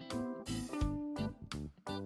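Background music: a run of plucked guitar notes over a low bass line.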